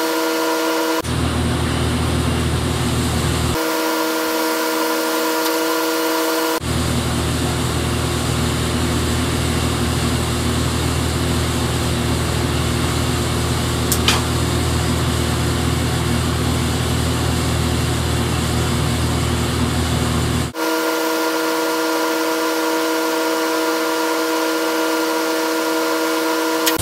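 TIG welding arc buzzing and hissing as weld is built up on the end of a tractor steering shaft. It is struck in passes: about a second in for a couple of seconds, again from about 6.5 s to 20.5 s, and once more right at the end. Between passes a steady whine with several pitched tones is heard, and there is one sharp click midway.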